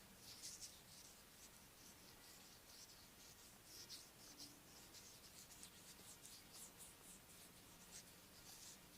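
Faint, quick, irregular scratchy rubbing strokes, a few each second: head massage with hands rubbing over hair and scalp.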